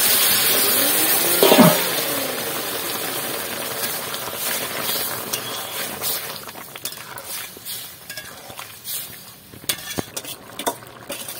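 A hot oil tempering of cumin and dried chillies sizzles loudly as it hits the vegetable curry, a hiss that fades gradually, with a sharp metal clank about a second and a half in. Then a metal spatula stirs and scrapes around the metal pan, with light clicks.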